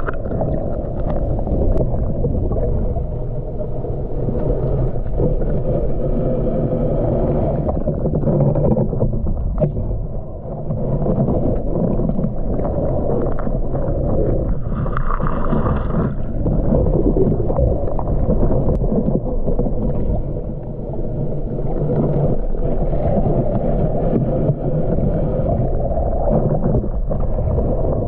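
Muffled underwater noise picked up by a submerged camera: a steady low rumble and swish of water as the camera moves through it, with a brief higher hiss about halfway through.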